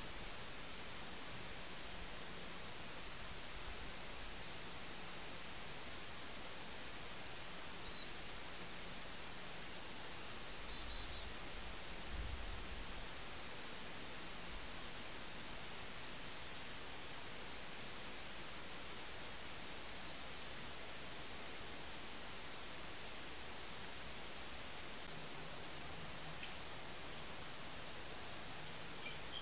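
A steady, high-pitched chorus of trilling insects.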